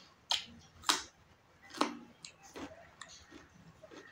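Mouth sounds of someone chewing a mouthful of food: three sharp wet clicks in the first two seconds, then softer, quicker ones.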